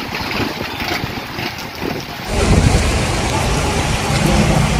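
Rain falling with strong wind buffeting the microphone. A little over two seconds in it cuts abruptly to a louder, steadier rumble of cars moving through a flooded, rain-soaked street.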